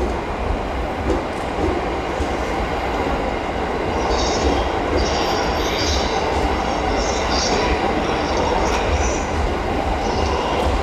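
Train running on rails with a steady low rumble, and wheel squeal coming and going from about four seconds in.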